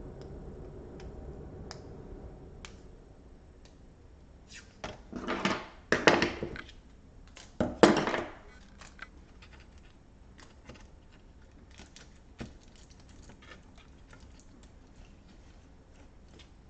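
Laptop parts being handled on a workbench: a few loud clattering knocks between about five and eight seconds in, with small scattered clicks before and after.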